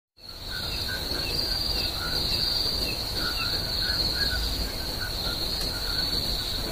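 Crickets chirping: a steady high trill, with fainter short chirps repeating underneath.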